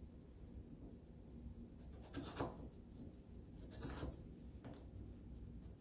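Large kitchen knife cutting a raw peeled potato on a plastic cutting board: quiet, soft cuts, two of them a little louder about two and a half and four seconds in.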